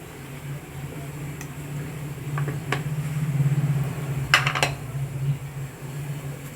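Utensil clinking against a cooking pan while sooji is cooked: a few single clinks, then a quick cluster of clinks a little past the middle, over a steady low hum.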